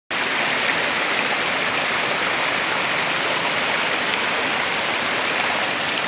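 A narrow waterfall and the rocky stream below it: water rushing steadily over rocks, an even hiss with no breaks.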